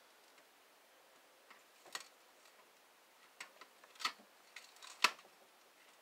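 Scattered sharp metallic clicks from a hand tool working on the metal parts of a CRT monitor, a fastener being worked loose without the right hex bit. About half a dozen irregular clicks, the loudest about five seconds in.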